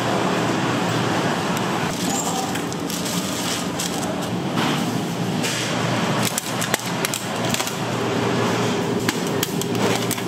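Working bakery kitchen noise: scattered clicks and knocks of trays and tools over a steady machine hum.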